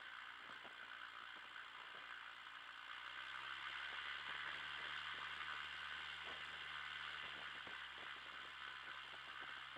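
Piper Cherokee's Lycoming six-cylinder engine running at low taxi power, a steady low hum behind a strong hiss, with light rattling as the plane rolls over grass. The engine gets a little louder about three seconds in.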